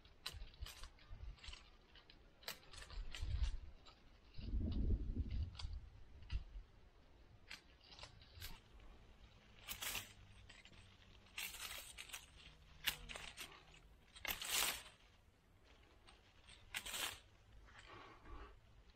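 Tomato plant being pruned: irregular crisp snaps and tearing of stems and leaves, with a low rumble about five seconds in.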